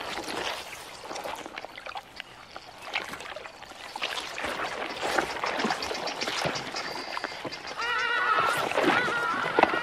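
Wet splashing and slopping of mud and water as a crocodile swings its head from side to side in a shallow muddy pool. From about eight seconds in, a series of short, repeated animal calls joins in.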